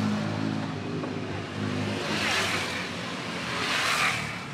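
Road traffic: a vehicle engine runs with a low, steady hum, then two vehicles pass by, one about two seconds in and another near the end.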